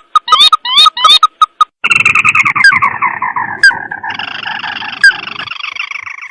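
Crake call played as a bird lure: a quick run of short repeated notes, about five a second, then from about two seconds in a long, dense chattering trill that slowly falls in pitch and turns higher again after about four seconds.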